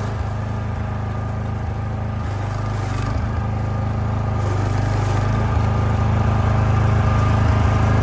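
Ride-on lawn mower's engine running steadily as it drives across the lawn, its note holding even and growing somewhat louder toward the end.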